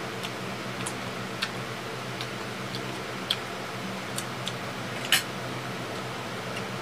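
Eating sounds: scattered soft clicks and smacks of chewing and lips as two people eat with their fingers, with one sharper click about five seconds in, over a steady low hum.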